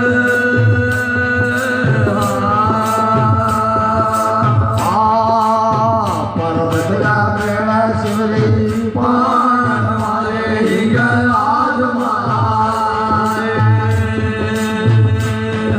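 Devotional bhajan: a voice singing long, drawn-out melodic phrases over a steady drone, with percussion keeping a steady beat of about two strokes a second.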